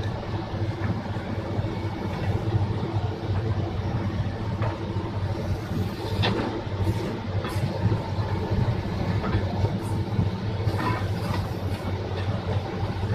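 Excavator diesel engine running steadily with a constant low hum, with a few short knocks partway through.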